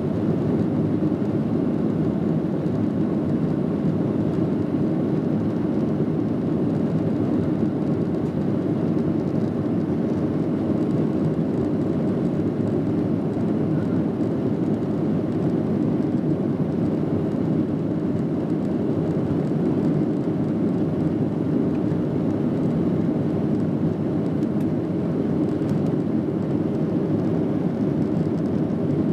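Steady in-cabin noise of a Boeing 737-700 in flight, heard from a seat over the wing: the low, even rumble of its CFM56 turbofan engines mixed with airflow rush, unchanging throughout.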